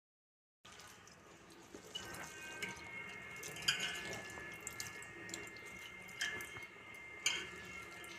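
Soaked urad dal being washed by hand in water in a steel bowl: faint sloshing and rubbing of wet lentils, with a few light clinks against the bowl that leave a short metallic ring.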